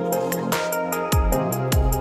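Electronic background music with a beat: deep kick-drum hits that drop in pitch, hi-hat ticks and sustained synth chords.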